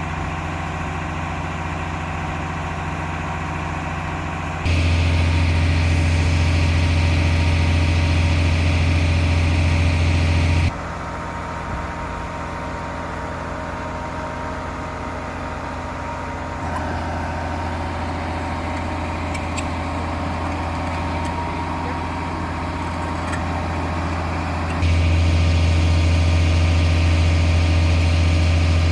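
Excavator's diesel engine running with a steady deep note, stepping abruptly louder about five seconds in, back down near eleven seconds, and louder again near the end.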